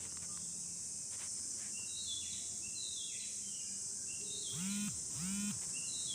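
A steady high hiss of background noise, with a few short high chirps in the middle and two short pitched calls, each rising then falling, near the end.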